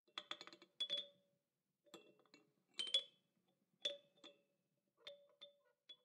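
Faint light tapping and clinking in about six quick clusters, each tap ringing briefly like small chimes or glass.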